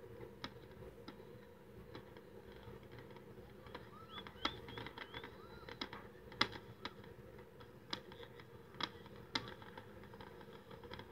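Distant fireworks going off: a dozen or so sharp, faint pops and cracks at uneven intervals.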